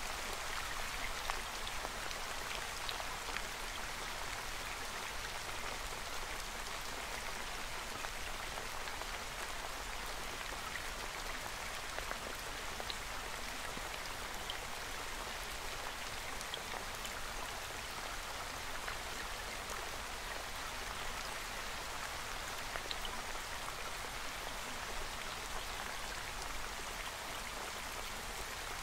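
Steady water ambience, an even hiss like rain or running water, with scattered faint drop-like ticks.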